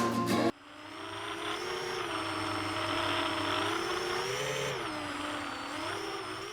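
Motors and propellers of a 7-inch FPV quadcopter whining, several tones rising and falling in pitch together as the throttle changes, over a hiss. It fades in after the music cuts off and fades out near the end.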